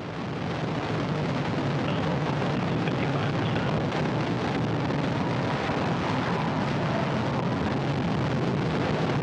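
Antares 230 first stage with its two RD-181 engines, heard from the ground as it climbs: a steady, distant rumble that swells over the first second and then holds level.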